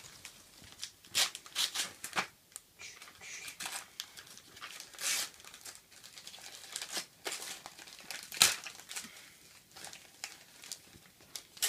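Wrapping paper being torn and crumpled as a present is unwrapped: irregular crackles and short rips, the sharpest about eight and a half seconds in.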